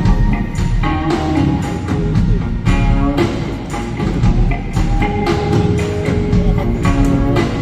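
Live rock band playing an instrumental passage: a steady drum beat with bass and guitar, and a held note from about five seconds in.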